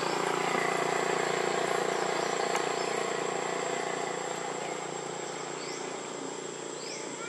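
A steady engine drone that slowly fades through the second half, over a thin, steady high insect whine. A few short bird chirps come near the end.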